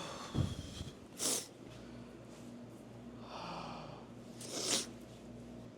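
A person sniffing and breathing out sharply three times, with a dull thump just after the start and a faint steady hum underneath.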